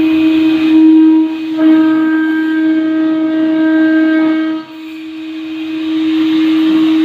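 4-axis CNC router spindle running with a steady whine, its overtones shifting as it cuts. The sound dips sharply about four and a half seconds in, then builds back up.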